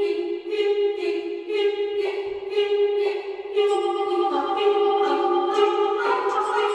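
Background music of sustained, choir-like voices over a regular pulse, with fuller parts coming in about halfway through.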